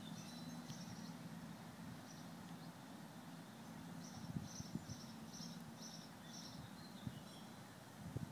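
Honeybees buzzing as a faint low hum, with a small bird chirping in short runs of high notes near the start and again from about halfway in.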